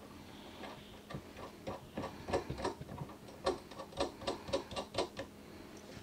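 A run of about a dozen sharp metallic clicks, unevenly spaced over about three seconds, from a lock nut being run down and tightened on the threaded end of a slide-out adjustment cable.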